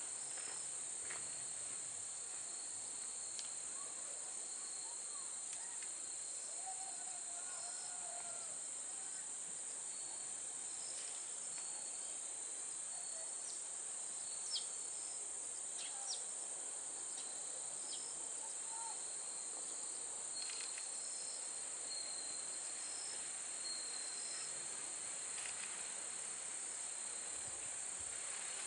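Steady high-pitched chorus of crickets and other insects in the grass, with a few faint bird chirps.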